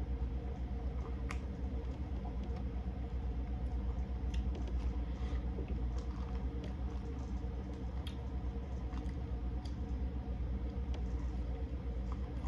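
Seafood-boil eating sounds: scattered soft clicks and squishes of shells being handled and food being chewed, over a steady low hum.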